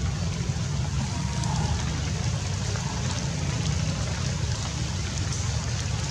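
Steady low rumble with an even hiss over it, unchanging throughout.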